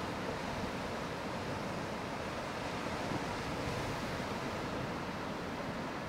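Pacific Ocean surf washing and breaking against shoreline rocks: a steady rush of water that swells slightly about halfway through.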